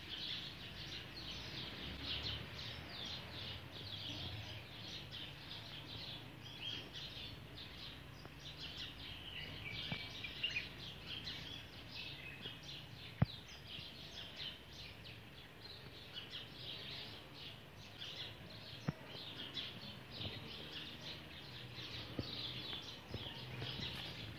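Many small birds chirping busily and without a break, over a low rumble. Two sharp clicks come through, one about halfway through and another about six seconds later.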